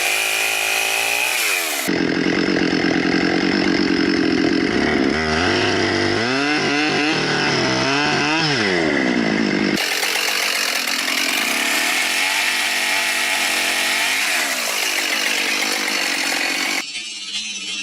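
Chainsaw running and cutting wood, its engine pitch rising and falling as the throttle is worked. The sound changes abruptly about two, ten and seventeen seconds in.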